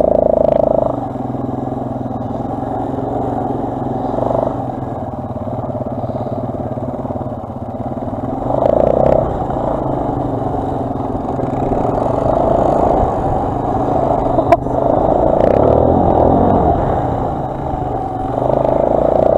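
Onboard sound of a quad bike (ATV) engine running under way, its revs swelling several times as the throttle opens, with a sharp knock about three-quarters of the way through.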